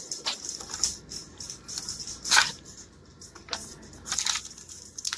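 Hands handling the clear plastic case and cardboard box of a trading-card power cube: irregular rustles, crinkles and clicks, the sharpest about two and a half seconds in and a quick run of them near the end.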